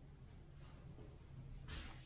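Quiet room tone with a steady low hum, and a brief soft noise of movement near the end.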